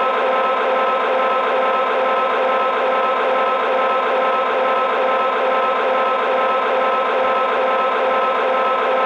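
Diesel locomotive engine sound from the onboard sound system of an MTH RailKing O gauge SD45 model, playing through its small speaker and held steady at one throttle notch, with no deep bass.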